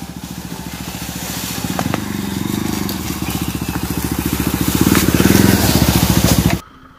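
Motorcycle engine working hard on a rough dirt track, growing steadily louder, with a few knocks and crunches from the ground; the sound cuts off abruptly near the end.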